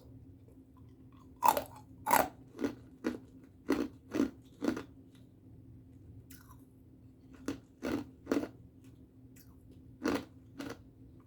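A person biting and chewing ice close to the microphone: about a dozen loud, sharp crunches in three bursts, with short pauses between them.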